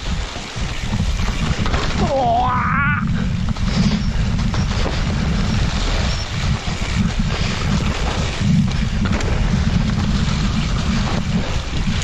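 Heavy wind rumble on a helmet-mounted action camera's microphone as a mountain bike descends a wet forest trail, with the hiss of tyres rolling over wet leaves and dirt. A short rising whine or call cuts through about two to three seconds in.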